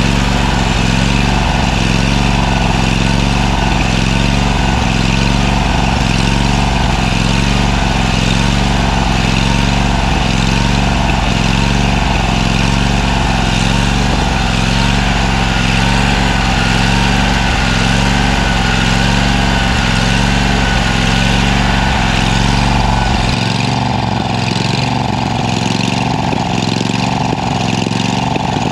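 Toro Z587L zero-turn mower engine running steadily while warming up, its temperature still climbing and its radiator fan not cutting in. About 23 seconds in, its sound gets slightly quieter and lighter.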